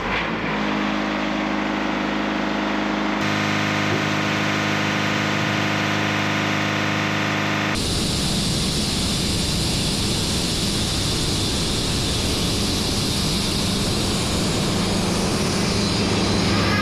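Portable band sawmill's engine running steadily. Its sound changes abruptly a little over three seconds in and again near eight seconds in, after which it becomes noisier.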